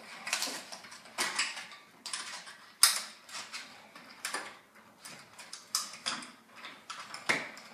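A window blind clicking and rattling as its headrail is handled and snapped into the mounting brackets: a dozen or so irregular sharp clicks and knocks, the loudest about three seconds in.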